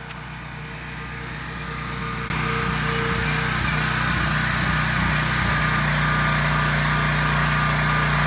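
Coleman Powermate 3500 open-frame generator's Subaru single-cylinder engine running steadily. It is heard from a distance at first, then close up and louder from about two seconds in. Its pitch wavers for a few seconds and then holds steady, as the engine takes up an electrical load.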